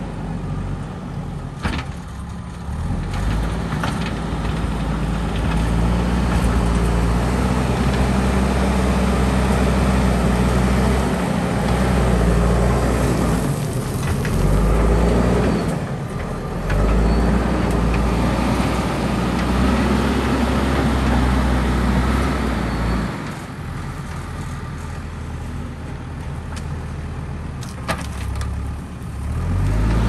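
JCB backhoe loader's diesel engine working, its revs rising and falling as the machine drives back and forth grading a dirt road with its front loader bucket. It grows quieter for several seconds near the end as the machine moves away.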